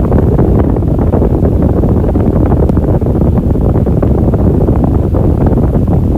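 Electric fan running steadily: a constant, low, dull rush of air with a fine flutter to it.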